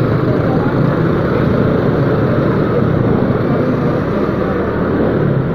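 Motorcycle engine running steadily while riding slowly in traffic, with a constant rumble of wind on the camera microphone.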